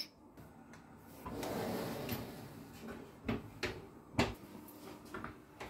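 Bosch built-in oven door being pushed shut: a stretch of scraping about a second in, a couple of light knocks, then a sharp clunk about four seconds in as the door closes.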